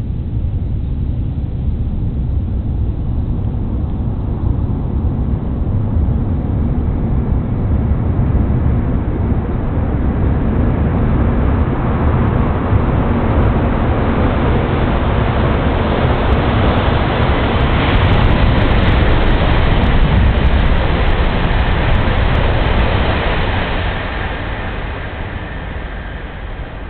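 E1 series Shinkansen bullet train passing at speed: a rushing noise of wheels and air that builds steadily, peaks a little past the middle with faint crackles, then fades near the end.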